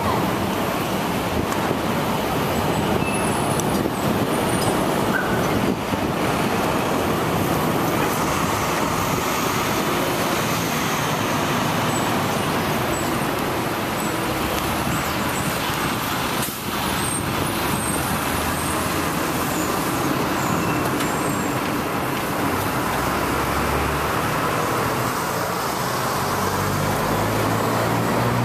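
City street traffic noise: a steady wash of passing cars and vans, with a vehicle engine's low hum growing stronger near the end.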